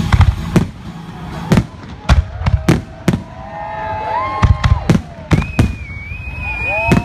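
Fireworks display: a quick irregular string of sharp bangs from bursting shells, about a dozen, with several whistling fireworks from about halfway that rise in pitch and then hold a steady shrill tone.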